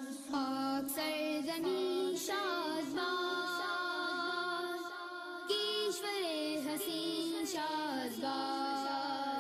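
Background music: a patriotic Pakistani song, a high voice singing a long, drawn-out melody over a steady accompaniment.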